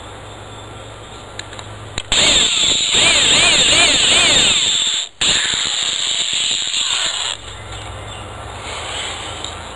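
Corded electric drill boring a hole into a wooden deck post for a plastic anchor. It runs about three seconds, stops briefly, then runs about two more seconds, its pitch wavering up and down.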